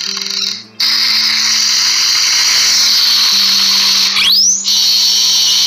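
Loud, harsh, high-pitched electric buzz like a drill, over low held tones that change pitch a few times, with a quick rising sweep about four seconds in: a produced intro sound effect.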